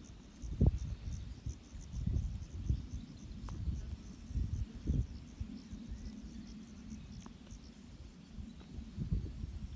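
Crickets chirping steadily in a fast, even pulse. Over them come louder low thumps and rustles, the strongest about half a second in and again around two and five seconds.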